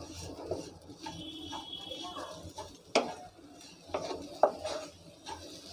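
A wooden spatula stirring crumbly dry-roasted semolina and grated raw potato in a non-stick frying pan as sugar is mixed in. It makes a soft scraping rustle with a few sharp knocks against the pan; the loudest comes about three seconds in, and another about a second and a half later.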